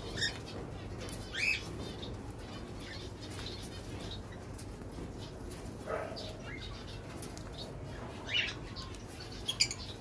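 Cockatiels in an aviary cage giving short chirping calls about five times, a few seconds apart, with a flutter of wings.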